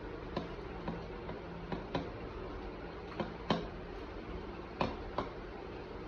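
Homemade fluffy slime being pressed and poked, making sharp, irregular clicking pops, about nine in six seconds, over a steady background hum.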